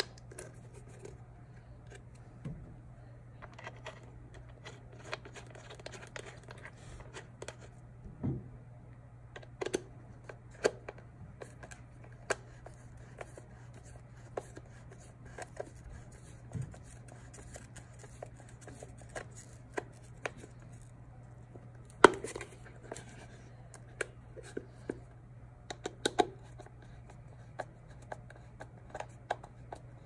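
Scattered small clicks, taps and scrapes of a plastic turn signal lamp being handled, its bulb socket fitted and a screw driven into the lens with a screwdriver. One sharper knock comes about two-thirds of the way through, over a steady low hum.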